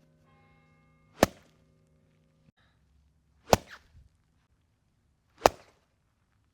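Golf club striking golf balls: three sharp hits about two seconds apart.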